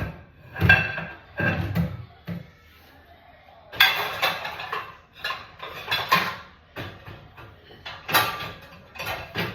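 Dishes and cutlery clattering and clinking in irregular bursts as they are loaded into a dishwasher.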